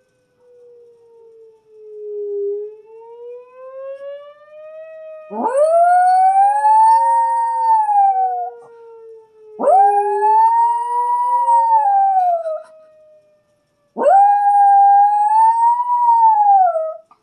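A morkie puppy howling along with an outdoor warning siren during its monthly test: three long howls, each swooping sharply up, holding and wavering, then falling away, over the siren's slow rise and fall.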